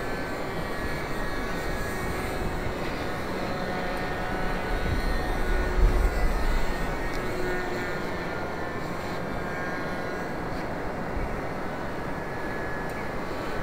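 Distant buzz of a radio-controlled model plane's ASP .52 glow engine in flight, drifting in pitch as it passes overhead, with one engine of the twin out. A low rumble swells briefly about five to six seconds in.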